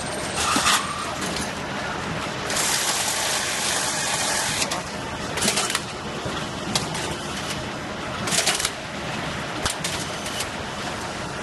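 Automatic carton sealer and strapping machine running: a steady mechanical din with scattered clicks and several loud hissing bursts, the longest about two seconds.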